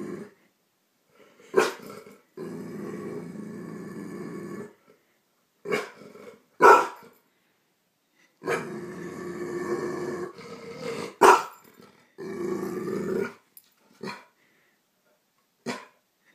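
Yellow Labrador retriever growling at its own reflection, long low growls broken by several short, sharp barks.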